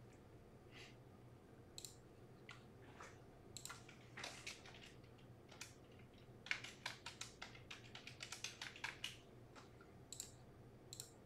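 Faint, scattered clicks and taps of a computer keyboard and mouse, busiest past the middle.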